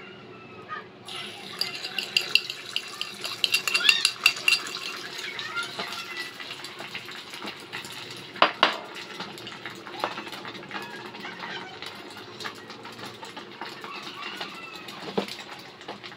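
Beaten egg sizzling in hot oil in a miniature wok, starting suddenly about a second in as it is poured. Metal clinks of small pans and utensils come over it, with a sharp knock about eight seconds in.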